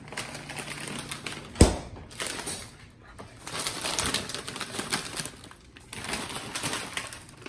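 A plastic bag of broccoli crinkling and rustling as it is handled, with one sharp thump about one and a half seconds in.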